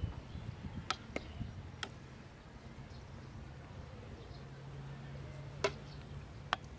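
A metal ladle clinking against a steel cooking pot, five short sharp clinks spread apart as the food is stirred and ladled. A low steady hum comes in about four seconds in and stops about two seconds later.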